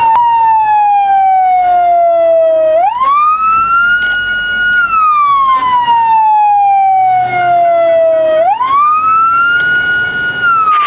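Fire-service siren wailing: the pitch falls slowly for about three seconds, sweeps quickly back up, holds briefly at the top and falls again, repeating twice.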